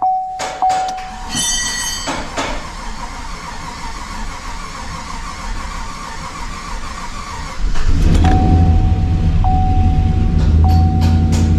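Chevy Silverado 1500 engine cranking over on the starter for several seconds, then catching about eight seconds in and settling into a loud, steady idle. This is its first start after the lifter and pushrod replacement. Background music plays over the idle.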